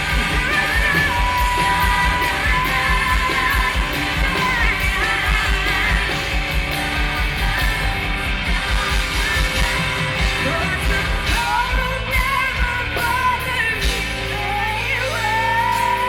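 Pop-rock song with a singer holding long high notes and running through quick melodic turns over a band with a steady driving beat.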